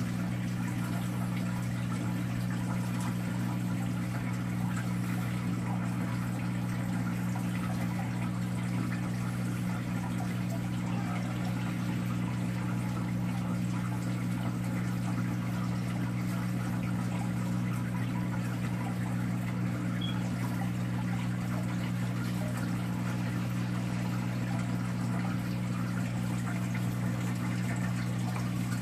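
Saltwater reef aquarium's circulation pumps running: a steady low electric hum with water moving through the tank over it.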